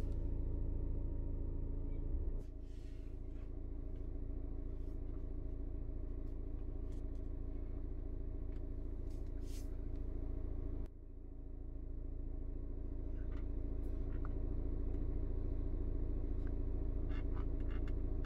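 2014 Audi Q3 TFSI petrol engine idling, heard from inside the cabin as a steady low hum that drops abruptly in level twice.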